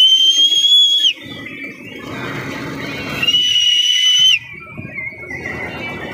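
A whistle blown in two long, shrill blasts. Each slides up slightly in pitch and is then held. The first stops about a second in, and the second sounds from about three to four and a half seconds in, over a low hum of fairground noise.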